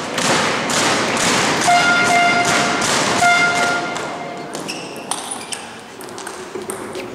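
Spectators clapping and cheering, with a horn sounding two short blasts. Then, over the last few seconds, a table tennis rally: the ball clicking off the paddles and the table about twice a second.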